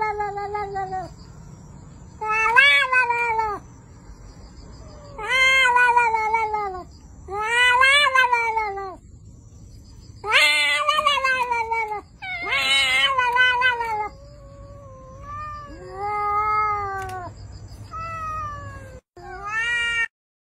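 A cat meowing over and over: about nine long, loud meows with short gaps between them, each rising and then falling in pitch.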